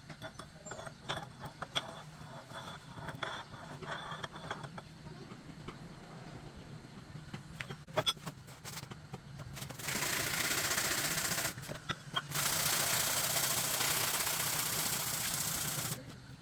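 Light clicks and taps of hand work on metal, then about ten seconds in a steady harsh hissing noise starts, breaks off briefly a couple of seconds later, and stops near the end.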